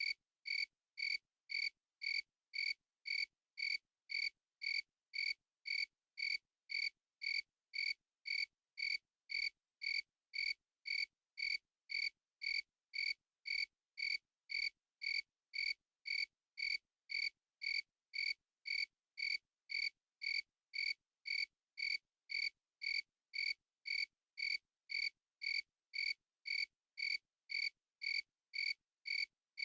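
A cricket chirping in a steady, even rhythm, about two short high chirps a second with silence between them.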